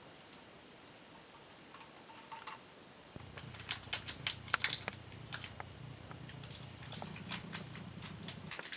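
Birds pecking and tapping at a feeder: quick runs of sharp taps starting about three seconds in and again near the end, over a low steady hum that also begins about three seconds in.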